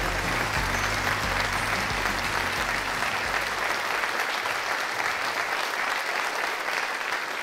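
Studio audience applauding steadily, with low music underneath that fades out about halfway through.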